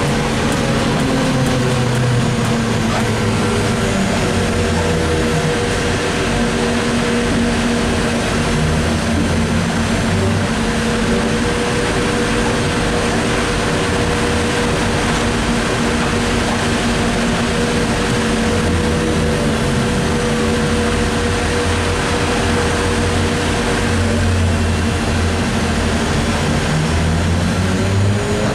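ZiU-683B trolleybus under way: its electric traction drive gives a whine that falls in pitch over the first couple of seconds. It then holds a steady hum over rumbling running noise and rises in pitch again near the end as the trolleybus picks up speed.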